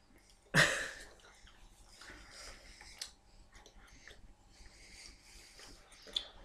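A short, loud breathy sound about half a second in, then quiet chewing and breathing close to the microphone as a chocolate is eaten.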